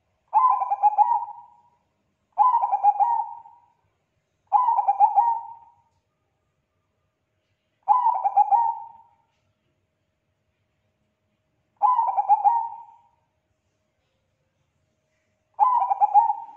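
Zebra dove (Bangkok-type perkutut) cooing: six phrases of about a second and a half each, every one a quick run of notes that trails off, separated by pauses of one to four seconds.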